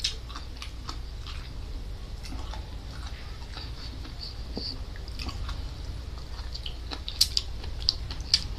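Close-miked chewing of raw salingungo seaweed: soft, wet crunching and small mouth clicks, with a few sharper clicks near the end.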